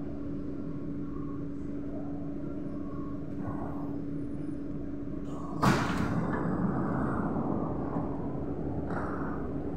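Kawasaki-Sifang C151B train car's steady electrical hum while stopped, then about six seconds in the passenger doors slide open with a sudden loud clunk, followed by a rush of sound that fades over a couple of seconds.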